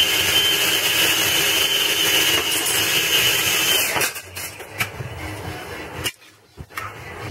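Small electric food processor running steadily with a whining motor, switched off about four seconds in, followed by a few light clicks.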